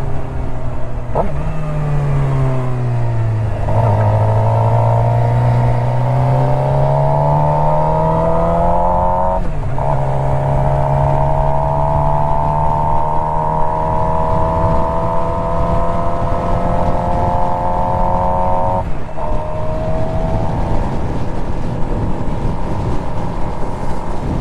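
Suzuki GSX-R motorcycle engine running under load, heard through a helmet microphone with wind noise. Its pitch sinks over the first few seconds, then climbs slowly, with sharp breaks about nine and nineteen seconds in as the rider changes gear.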